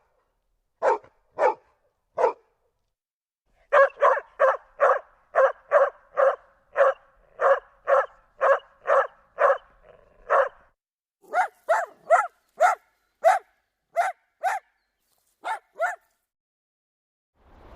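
A dog barking in short, separate barks: a few spaced barks, then a steady run of about two barks a second, then higher, sharper barks from about eleven seconds in.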